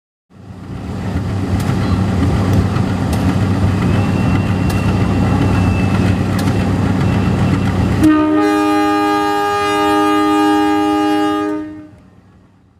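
A locomotive rumbling with a low hum and occasional sharp clicks. About eight seconds in, its multi-tone air horn sounds one long chord-like blast of about three and a half seconds, then cuts off.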